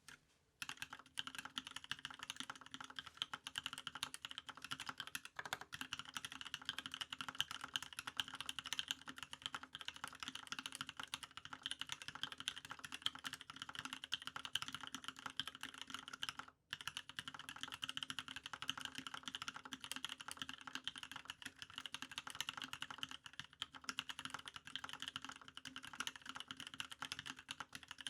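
Continuous typing on a TGR Alice mechanical keyboard with lubed Cream linear switches on 55g springs in a brass plate, under GMK keycaps: a dense, unbroken stream of key clacks that starts about half a second in, with one brief pause a little past halfway.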